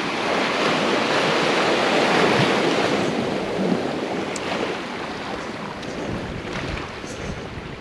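Sea waves washing on the shore, swelling about two seconds in and then easing, with wind buffeting the microphone.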